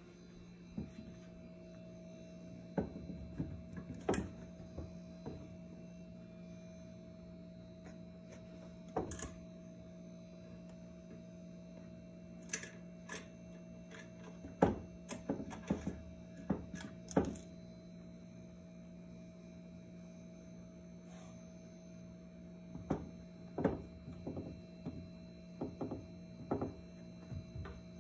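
Scattered light clicks, taps and knocks in irregular clusters as a cat bats a toothpick about among wooden chairs and on a tiled floor, over a steady electrical hum.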